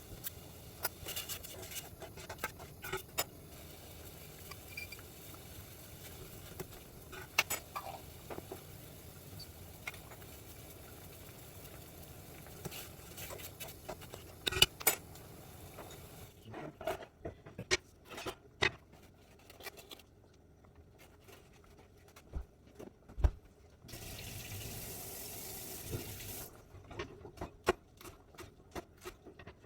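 Kitchen cooking sounds: scattered clicks and knocks of utensils against dishes and pots, and a few seconds of running water late on.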